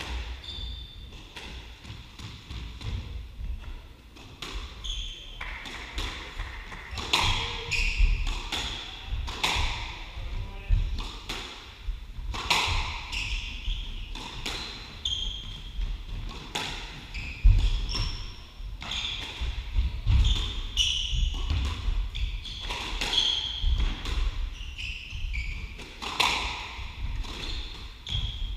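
Squash rally: the ball cracking off rackets and the walls at irregular intervals, with shoes squeaking on the wooden court floor and thudding footsteps between the shots.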